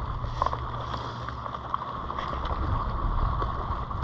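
Wind rumbling on an action camera's microphone over water lapping against a kayak, with a few faint ticks.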